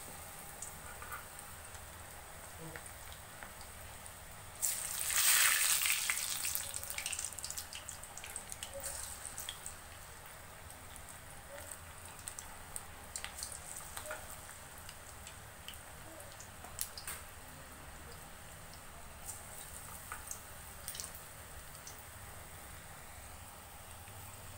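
Cabbage manchurian balls deep-frying in hot oil in a kadai: a steady sizzle with scattered pops and crackles. About five seconds in, a sudden louder burst of sizzling as another ball goes into the oil, dying down over the next couple of seconds.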